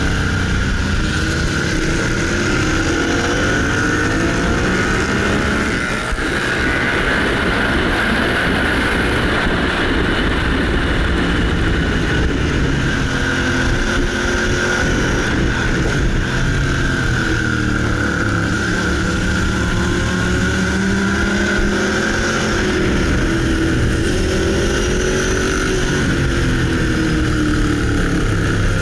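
Motorcycle engine heard from onboard while lapping a circuit, its revs rising and falling again and again through gear changes and corners, over a steady rush of wind on the microphone.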